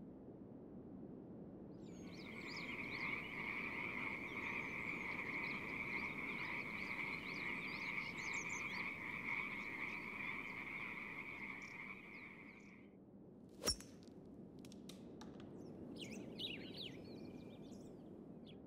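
Frogs calling in a long, steady high trill for about eleven seconds, with faint bird chirps above it. A single sharp click comes about two-thirds of the way through, followed by a few more faint chirps.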